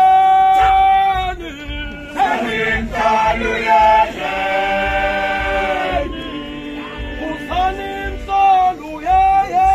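Isicathamiya male choir singing a cappella in close harmony, with long held notes that shift from chord to chord.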